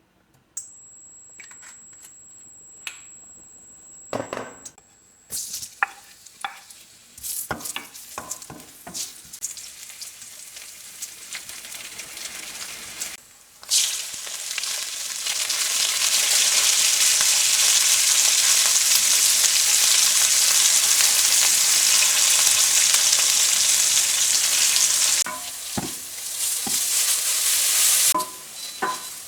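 Food frying in a hot pan. Scattered clicks and knocks come first, then about halfway through a sudden loud, steady sizzle sets in, easing off a few seconds before the end.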